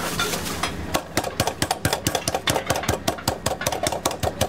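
A flat-faced metal meat mallet pounding a raw schnitzel cutlet flat through plastic cling film on a wooden cutting board. A few single strikes are followed, about a second in, by fast, even blows at about six a second.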